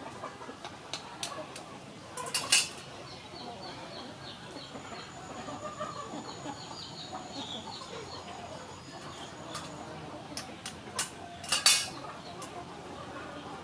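Boiled eggs being peeled by hand and set on a metal plate, with two sharp clinks against the plate, the louder one near the end. Birds chirp repeatedly in the background.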